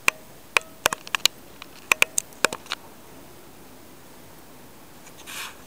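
A quick, irregular run of about a dozen sharp clicks and taps, then a brief soft rustle near the end.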